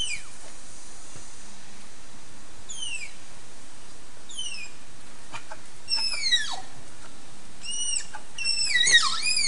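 Malayan tapirs calling with a series of high-pitched squeaking whistles, each sliding down in pitch. A few come singly, then they come more often and closer together near the end, over a steady background hiss.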